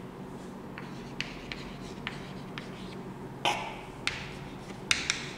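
Chalk writing on a blackboard: scattered short taps and scrapes of the chalk, with one louder stroke about three and a half seconds in and a few quick taps near the end.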